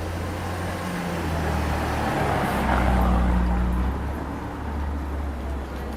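A motor vehicle passing close by on a street: low engine hum with tyre and road noise that swells to its loudest about three seconds in, then eases off.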